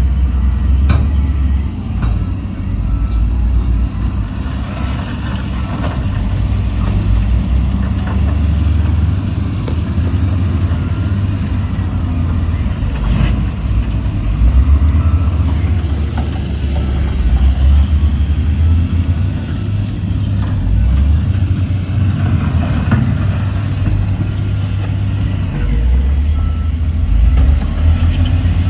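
Heavy diesel construction machinery running continuously with a deep, uneven engine rumble, with a brief hiss of air about five seconds in.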